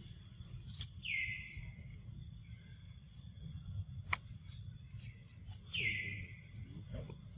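Forest ambience: a steady high insect drone, with two short high calls that slide downward in pitch, about five seconds apart.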